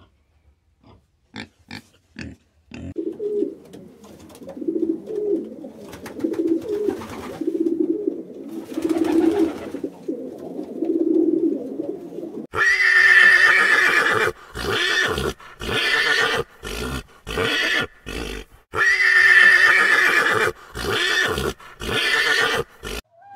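A few short grunts from young pigs at the start. Then a domestic pigeon cooing in repeated low phrases. Near the middle, a miniature pony begins neighing loudly: two long whinnies with shorter calls between them.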